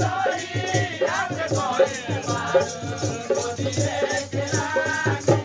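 Live badhai folk song: a voice singing a wavering melody over steady beats of a dholak barrel drum, with a jingling rattle keeping time in the high end.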